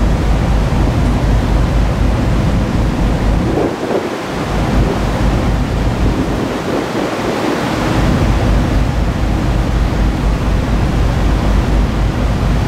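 Strong wind buffeting the microphone on an open ferry deck: a loud low rumble with a rushing hiss. It eases briefly about four seconds in and again around seven seconds in.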